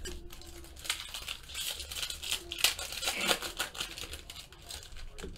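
Shiny wrapper of a Topps High Tek baseball card pack crinkling and tearing as it is pulled open by hand, in irregular crackles that are busiest in the middle.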